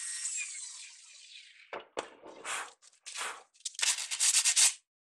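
Hand sanding of a small wooden dowel rod with folded sandpaper: a few separate rubbing strokes, then a quick run of short back-and-forth strokes near the end. A high whine fades out over the first second and a half.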